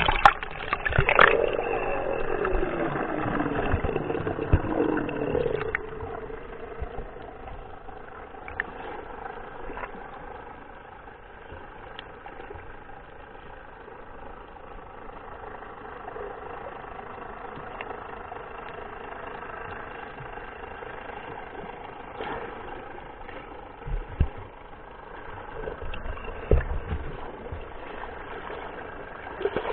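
Muffled underwater sound inside a camera housing: water rushing and bubbling as it plunges under for the first few seconds, then a steady boat-engine hum carried through the water, with a few dull knocks later on.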